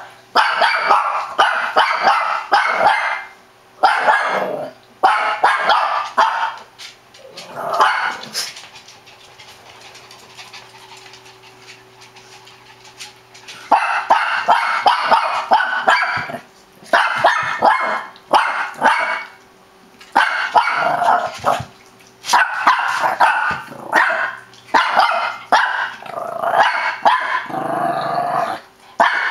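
Shih Tzu barking in rapid, excited runs while playing. The barking stops for several seconds about a third of the way in, then starts again and runs almost without a break.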